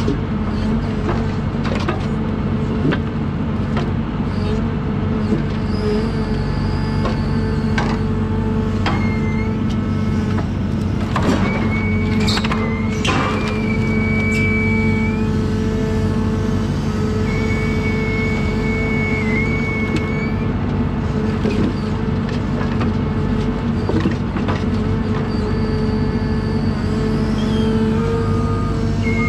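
John Deere 1010G forwarder's diesel engine running steadily, with a high whine that comes and goes several times and scattered knocks.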